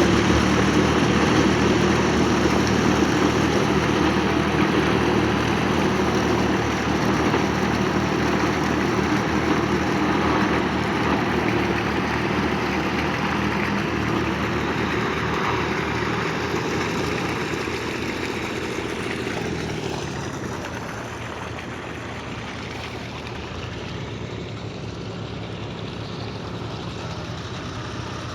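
Farm tractor engine running steadily, growing fainter about two-thirds of the way through.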